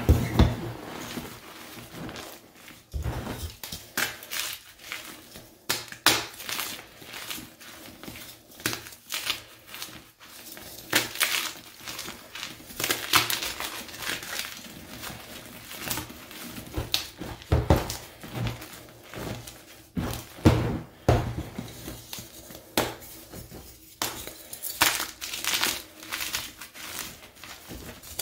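Gloved hands crushing Picsil gym chalk: handfuls of crumbled pink-dyed and white chalk squeezed and ground between the palms, and solid white chunks broken apart, making irregular dry crunches several times a second.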